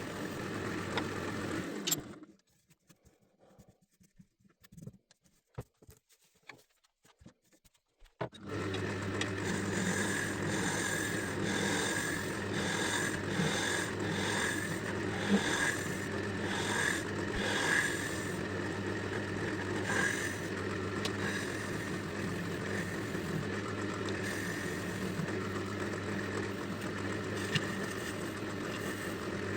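Wood lathe running with a steady motor hum while a turning tool scrapes the spinning epoxy-resin blank. The sound drops to near silence about two seconds in and comes back about eight seconds in.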